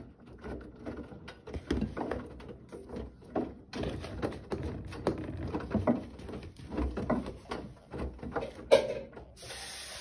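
Irregular knocks and clicks from handling a Bosch washing machine's detergent drawer and program dial, one sharp click near the end. Then a steady hiss as water starts running into the machine.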